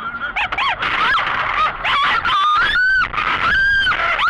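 A person screaming in a string of high-pitched cries, each rising then falling in pitch, the later ones held longer, as the car slides off the icy road.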